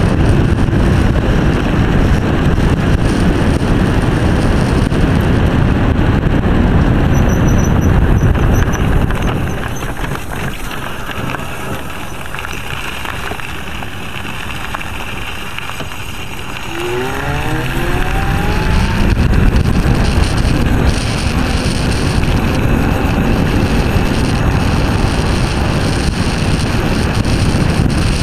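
Silenzio 45 electric scooter riding along a road, with wind rushing over the microphone and road noise. About ten seconds in the noise drops as the scooter slows. About seventeen seconds in, the electric motor gives a rising whine as it accelerates, and the rushing noise builds again.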